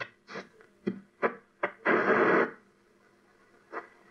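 Nordmende Phonosuper valve radio being tuned across the dial: short snatches of stations and static flick past, with a louder half-second rush of noise about two seconds in, then a quiet stretch before the blips come back near the end.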